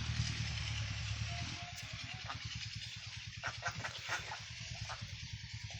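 A small engine running steadily, with a cluster of short harsh calls from ducks in the middle.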